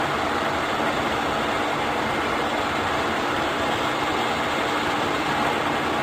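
Mori Seiki MS-850 engine lathe running under power, its headstock gearing and spindle giving off a steady, even mechanical whir with no change in speed.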